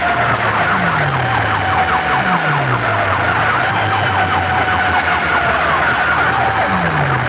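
Very loud sound from a stacked sound-box speaker setup: a siren-like wailing tone over rapid ticking, with three deep bass sweeps that fall in pitch.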